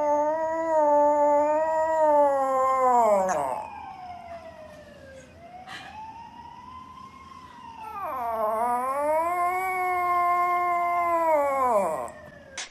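Toy poodle howling in long drawn-out notes: one long howl that falls away about three seconds in, fainter sliding howls in the middle, then a second long howl that slides down at the end.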